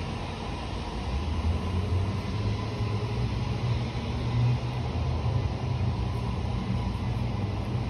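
Steady outdoor background noise: a low rumble with an even hiss over it, no distinct events.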